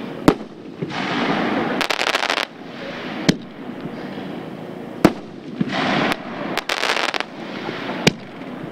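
Pyro Demon 'Stairway to Hell' 3-inch consumer finale cake firing: four sharp bangs a few seconds apart, with two stretches of dense crackling between them.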